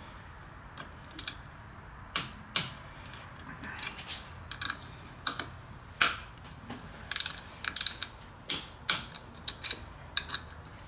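Torque wrench ratcheting and clicking as the clutch bolts are tightened to 11.2 Nm, the wrench clicking when a bolt reaches torque. Sharp clicks, singly and in quick pairs, at irregular spacing.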